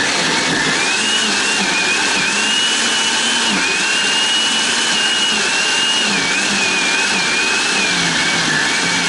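Redmond countertop blender running at full speed, puréeing raw liver and onion chunks into a batter. A loud, steady motor noise with a high whine that wavers slightly in pitch.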